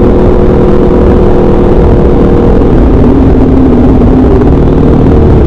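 Motorcycle with an SC-Project aftermarket exhaust running under way, a loud steady engine note that drops and wavers for a second or two in the middle, then settles steady again.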